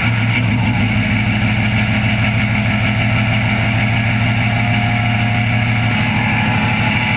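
Ford 6.0 Powerstroke V8 turbodiesel idling steadily just after its first start on a freshly installed KC Turbos 10-blade turbo. The variable-geometry turbo has not yet kicked in, so there is no pre-spool whistle over the engine.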